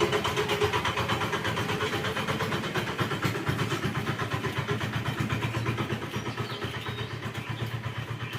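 An engine running steadily with an even, rapid beat.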